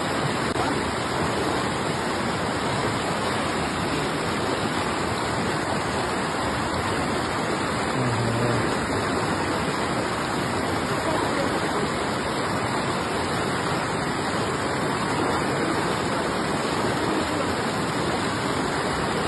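Flood-swollen mountain river rushing over rocks: a steady, unbroken noise of white water.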